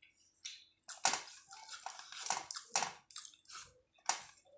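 Wet squishing of rice and curry being mixed and mashed by hand on a steel plate, in a quick run of short strokes.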